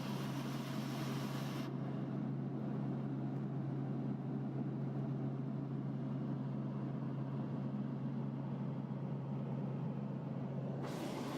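Steady drone of a helicopter in flight, heard from on board: a constant low hum with rushing noise over it. The hiss drops away about two seconds in and returns near the end.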